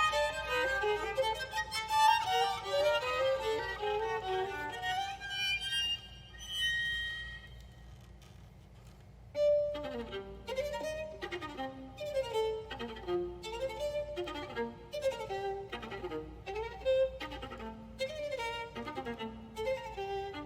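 Violin playing classical music: a fast run of notes fades to a soft held note about six seconds in, then a new quick phrase starts about three seconds later.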